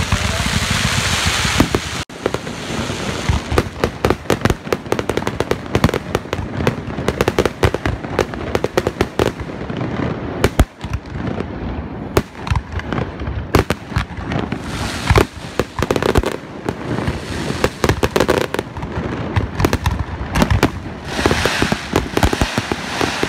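Fireworks display: aerial shells bursting in rapid, continual bangs and crackles. A dense rushing hiss fills the first couple of seconds and comes back briefly near the end.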